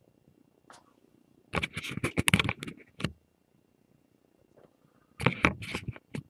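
Shrink-wrapped hockey card box being handled, its plastic wrap crinkling and rustling in two bursts of quick crackles, one about a second and a half in and one near the end.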